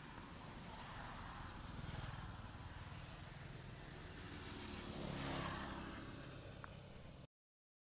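Motor vehicles passing, a steady rumble that swells louder about two seconds in and again, loudest, a little past five seconds, then cuts off suddenly.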